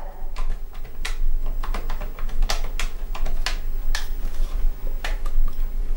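Plastic buttons on a telephone handset being pressed to dial a number: a quick, irregular series of sharp clicks, about fifteen of them, with no dial tones.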